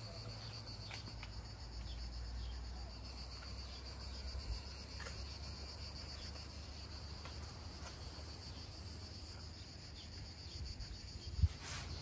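Steady high-pitched chorus of insects in the trees, with a fast even pulsing, over a low background rumble. A single thump sounds near the end.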